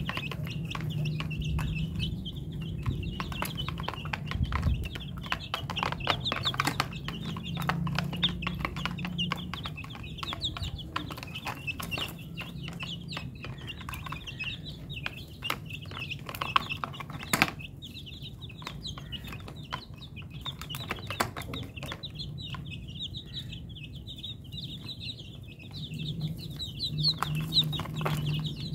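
A flock of chicks peeping and cheeping almost without pause, over many short taps and clicks as they peck at the ground. A low clucking comes and goes, and one sharp click stands out about halfway through.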